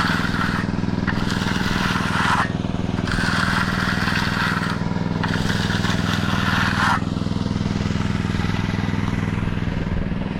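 A motor running steadily, with several stretches of rough scraping noise, each a second or two long, that stop about seven seconds in.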